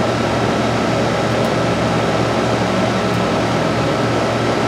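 Outdoor heat pump condensing units running in cooling mode: a steady rush of condenser fan air over a low compressor hum, with a faint steady higher tone.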